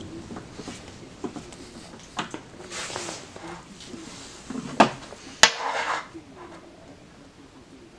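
Drilled steel blocks and a hand tool being handled on a steel drill-press table, giving scattered clinks and knocks. The loudest are two sharp metallic knocks a little after the middle, followed by a short scraping rustle.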